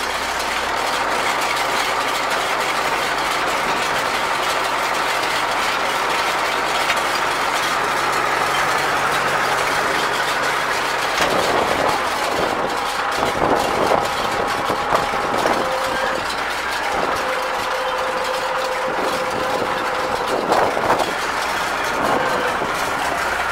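Tractor engine and CLAAS 46 round baler running together in a steady mechanical din as the baler works. About halfway through, the low engine hum drops away, and thin whining tones and a few knocks come and go.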